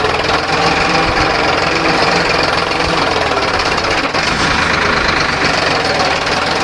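Farmtrac 60 tractor's diesel engine running steadily under load in first gear as it pulls a plough through the soil.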